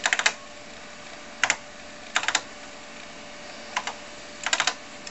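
Keys of a TRS-80 Model III keyboard clicking as the date and time are typed in, in five short runs of a few keystrokes each with pauses between.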